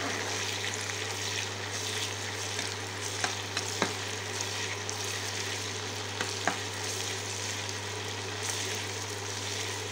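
Chopped onions and green chillies sizzling steadily as they fry in hot oil in a wok, stirred with a spatula that knocks lightly against the pan a couple of times.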